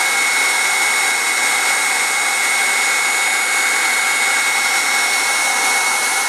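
Handheld electric heat gun running steadily: a blowing hiss with a steady high whine from its fan motor.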